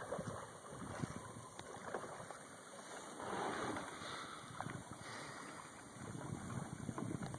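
Kayak paddling on calm water: soft splashing and trickling of paddle strokes and water along the hull, with a few small drips. The splashing swells for a moment about three seconds in.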